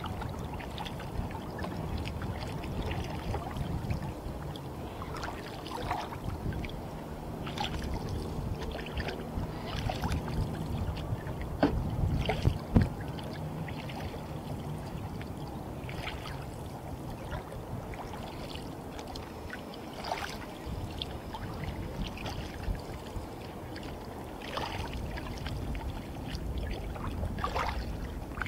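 Kayak paddling: the blades splash into the water every couple of seconds over a steady low wash of choppy water, with one sharp knock a little before halfway through.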